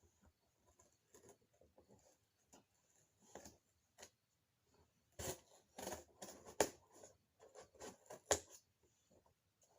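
Scattered rustling and clicking of gift packaging and items being handled, sparse at first and busier and louder in the second half.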